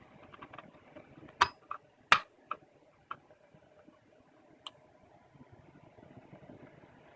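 Six or so sharp clicks and knocks, the loudest about two seconds in and the last near the five-second mark, over a faint steady hum.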